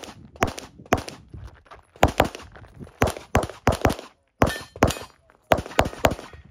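Walther PDP SF 9 mm pistol fired rapidly: about a dozen sharp shots in quick pairs and strings of three or four, with short pauses between the strings.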